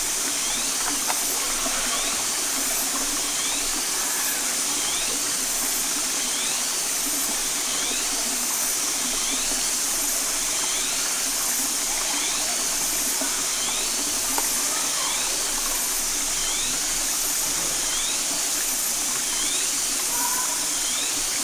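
Steady rush of a shallow, rocky forest stream, with faint short rising chirps repeating about once a second.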